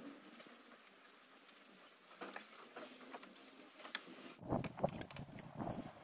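Faint metallic clicks and taps of a 12 mm wrench and a small pry bar working on the nuts of a viscous fan clutch. It is quiet at first, then the clinks come more often and louder in the last second and a half.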